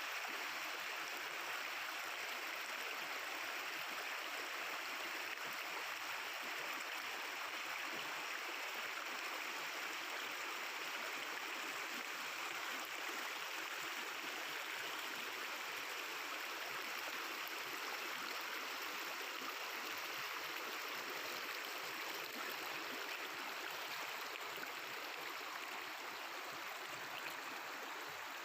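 Mountain river flowing over rocks: a steady, even babble of running water.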